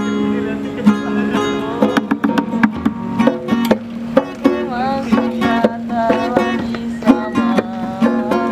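Music: a song with plucked and strummed guitar and a melodic line over a steady low note.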